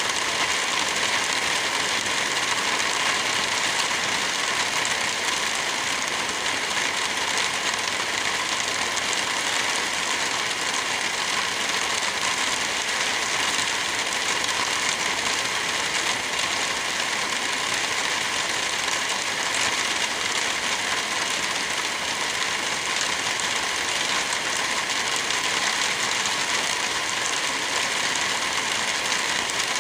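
Steady rain, a constant even hiss with no thunder.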